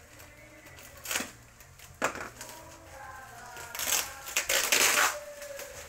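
Crinkly yellow paper wrapping and packing tape being pulled and torn off by hand. Short tears about one and two seconds in, then a longer, louder ripping and crinkling near the end.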